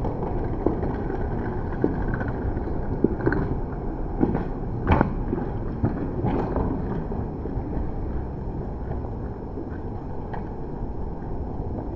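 Steady low rumble of wind and handling noise on a body-worn action camera carried by someone walking, with scattered knocks and clicks, most of them in the first half.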